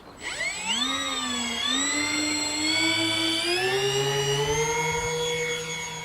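Twin electric motors and propellers of an Avios Albatross HU-16 RC flying boat whining as the throttle opens, the pitch climbing over the first few seconds and then holding steady at high power. It is the take-off run from the water.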